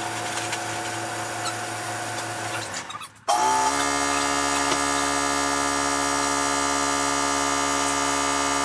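Electric air compressor motor running with a steady hum. About three seconds in the sound drops out briefly, then a louder hum starts up, rises quickly in pitch and settles to a steady run.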